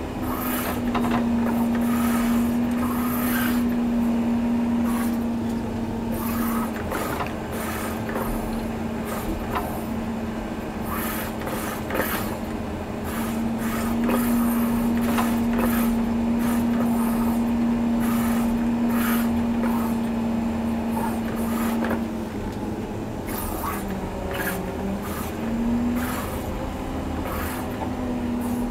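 John Deere 670G motor grader's diesel engine running steadily under load, its note sagging twice for a few seconds, with scattered scraping and rattling from the blade working the dirt.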